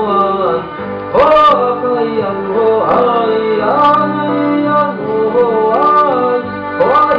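Live performance of an Amis drinking song: male and female voices singing together in gliding, chant-like phrases over instrumental backing.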